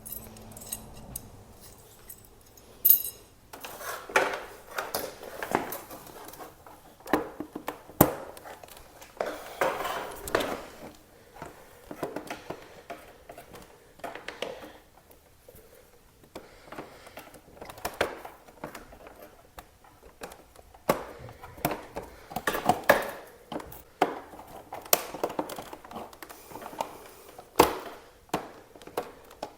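Irregular clinks, knocks and rattles of hand tools, bolts and plastic fairing panels as a motorcycle's fairings are unbolted and lifted off.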